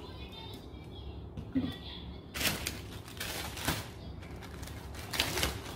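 Plastic zip-lock bag crackling and crinkling as it is handled and opened, starting about two seconds in, after a short soft knock.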